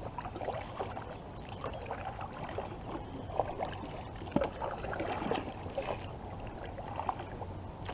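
Kayak paddling: the double-bladed paddle dipping and pulling through the water in alternating strokes, with small irregular splashes and drips off the blades.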